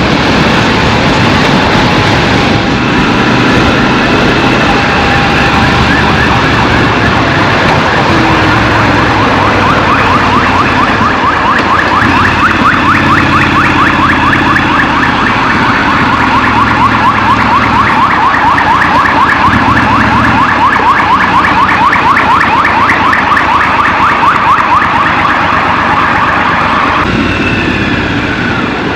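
Scrambler motorcycle engine running in city traffic, with an emergency-vehicle siren sounding in a rapid repeating yelp from about ten seconds in until shortly before the end.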